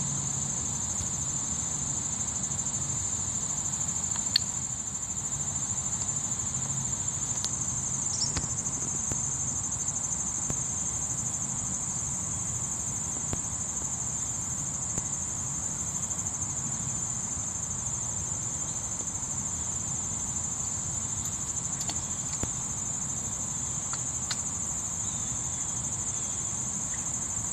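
Chorus of late-summer insects shrilling steadily in one high-pitched, unbroken band, with a few faint clicks here and there.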